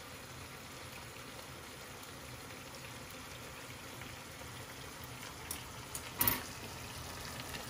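Cherry tomatoes cooking in olive oil in a frying pan, a faint steady sizzle and bubble. A sharp click a little after six seconds in.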